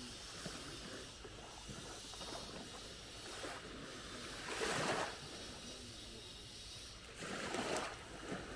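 Small waves lapping on a sandy beach over a steady hiss, with a louder wash of surf about halfway through and another near the end.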